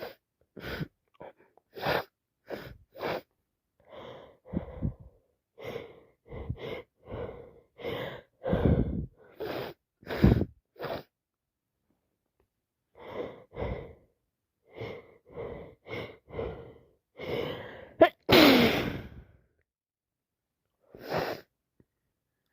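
A woman with a heavy head cold sniffing over and over through a congested nose, breaking into several sneezes, the loudest near the end.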